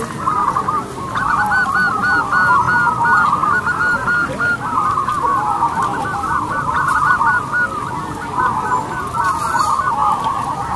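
A chorus of many zebra doves (perkutut) cooing at once, their rolling coos overlapping into a dense, unbroken sound.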